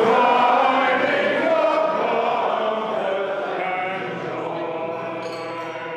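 A mixed group of voices singing together from song sheets, with an acoustic guitar accompanying, getting gradually quieter.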